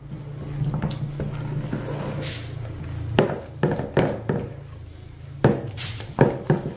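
A spoon stirring thick, heavy polvilho dough in a plastic bowl, knocking against the bowl several times in two quick runs, about three seconds in and again near the end, over a steady low hum.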